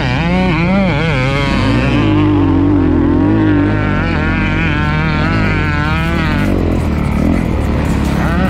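Honda CRF450R single-cylinder four-stroke motocross bike being ridden hard, its engine pitch rising and falling again and again as the throttle is rolled on and off, with a steadier stretch of held revs in the middle.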